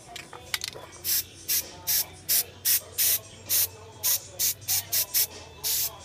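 Aerosol can of bed liner coating spraying in a rapid series of short bursts, about two a second, with a slightly longer burst near the end. These are light passes laying down a second coat.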